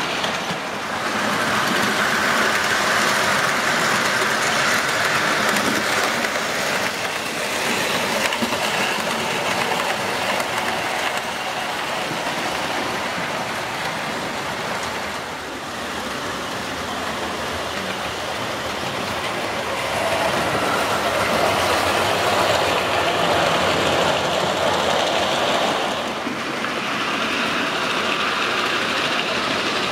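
Several model railway trains running at once: small electric locomotive motors whirring and wheels running over the track, growing louder twice as trains pass close by.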